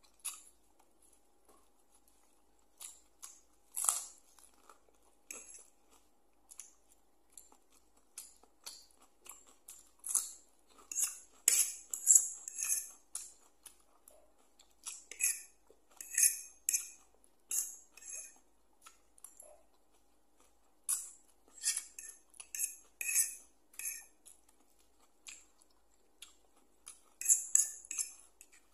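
Noodle-eating sounds: a fork clinking and scraping on a plate, along with slurping and chewing of noodles. They come as a run of short clicks and scrapes with brief pauses between.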